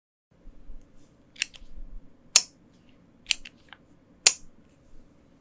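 Single keystrokes on a QK65 mechanical keyboard with lubed Gateron Ink Black linear switches: about five sharp clacks spaced roughly a second apart, the loudest near the middle and near the end.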